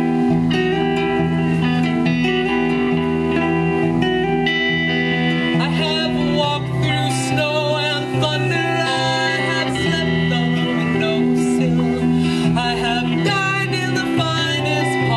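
Live band music: an electric guitar and an electric bass playing together, with a woman singing part of the time.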